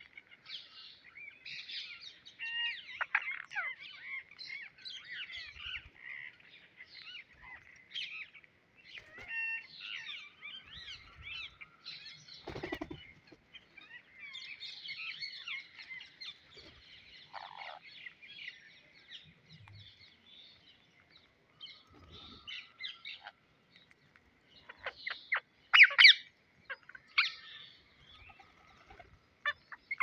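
A feeding flock of rose-ringed parakeets chattering with many short chirps and squawks. A brief knock comes near the middle, and a burst of louder, sharper calls comes about four-fifths of the way through.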